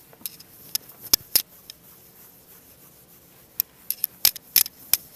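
Whiteboard eraser wiping a whiteboard in short strokes, heard as sharp clicks and rubbing: a few strokes about a second in, then a quicker run of them in the last second and a half.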